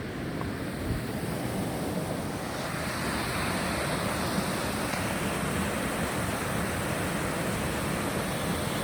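Rushing creek water, a steady rush that grows a little fuller and louder about two and a half seconds in.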